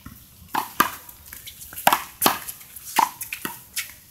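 Small rubber handball smacked by open hands and striking the concrete handball wall and court in a rally: a quick, irregular string of sharp smacks, several each second.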